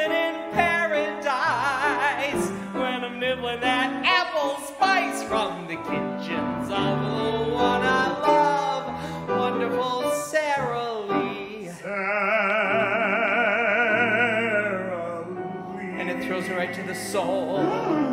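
A man singing in an operatic style with wide vibrato, accompanied by a grand piano. About twelve seconds in he holds one long high note.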